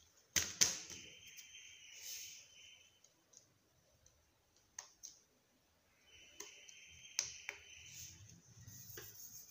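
A plastic LCD writing tablet being handled: a scatter of sharp clicks, the loudest two about half a second in, with short brushing rubs around a second in and again around six seconds in.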